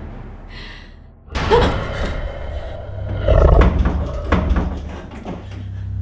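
Horror film sound effects: a sudden loud slam about a second in, followed by a string of bangs and knocks over a deep rumble, with warped, voice-like glides.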